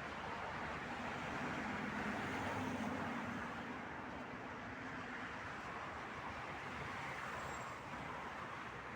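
Road traffic: a steady rush of passing cars, swelling as a vehicle goes by about two to three seconds in.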